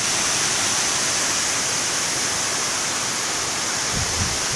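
Khlong Lan waterfall's water pouring and rushing in a steady, loud hiss.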